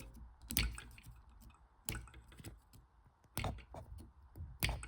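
Small hard plastic model-kit pieces clicking and tapping as they are handled, about five sharp clicks at irregular intervals.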